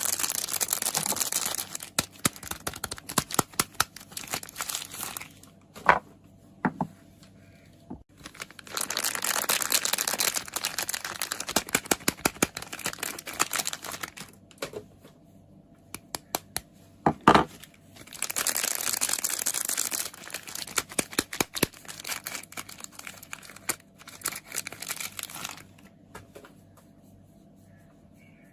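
Soap packaging being crinkled and torn open close to the microphone, in three long stretches of crackling. Between them come scattered sharp clicks and a few louder knocks.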